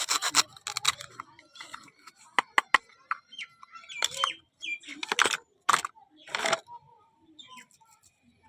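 Packaging being unboxed by hand: bursts of rustling and crinkling with sharp clicks and a few short squeaks.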